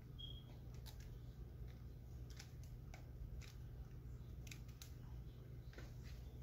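Faint, irregular crisp clicks and rustles of hands twisting locs of hair into knots, over a low steady hum.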